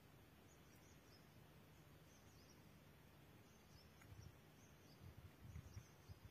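Near silence: a faint outdoor background with soft high chirps repeating throughout, and low muffled thumps starting about four seconds in.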